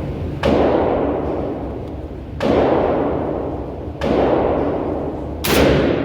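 Rock Island VR70 semi-automatic shotgun fired four times, a second and a half to two seconds apart, each shot followed by about a second of echo dying away.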